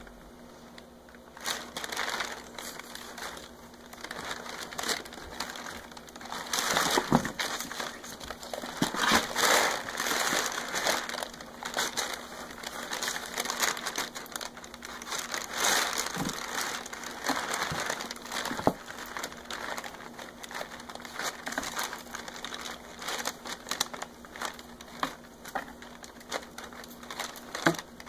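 Brown packing paper crinkling and rustling in a cardboard box as kittens scramble through it, in irregular bursts with sharper crackles, busier after the first few seconds.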